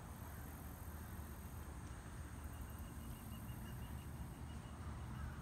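Quiet outdoor ambience: a steady low rumble with no distinct knocks or steps. A faint high trilling tone starts about halfway in and continues to the end.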